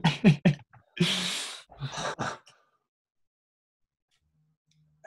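A man's short voiced bursts, then a long sigh about a second in.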